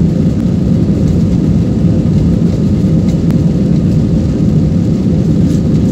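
Inside the cabin of a low-wing jet airliner speeding down the runway: steady, loud low rumble from the engines and the wheels rolling on the runway.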